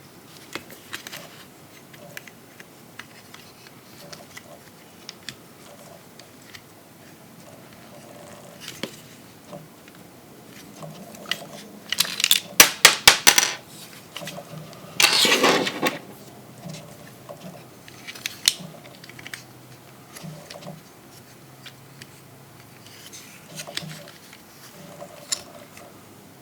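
Plastic parts of a Transformers action figure clicking and scraping as it is handled, with scattered small ticks. About twelve seconds in comes a quick run of about six sharp clicks, then a short rasping scrape a couple of seconds later.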